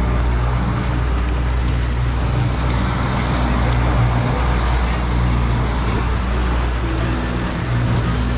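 Fishing boat's engine running steadily under way, a low even hum with a rushing noise of water and air over it.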